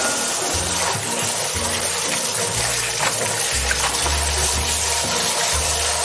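Kitchen tap running steadily, its stream splashing onto cabbage leaves in a plastic basin as they are rinsed by hand.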